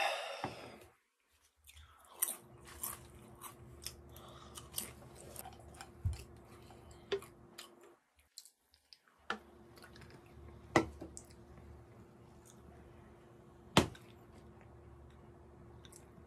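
Close-miked eating and drinking sounds: potato chips being chewed with scattered crunches, and beer poured from a can into a glass of ice, over a steady low hum. Two sharp knocks stand out, about two-thirds of the way in and near the end, like a can or glass set down on a wooden table.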